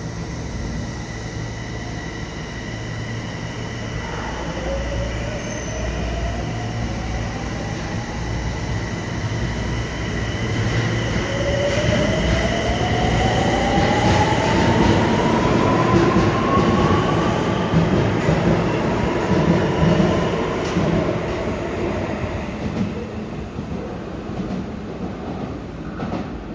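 Yokohama Municipal Subway Blue Line train pulling out of the station. Its traction motors whine, rising steadily in pitch as it accelerates, over the rumble of wheels on the rails. The sound is loudest as the cars pass and fades near the end as the train runs off toward the tunnel.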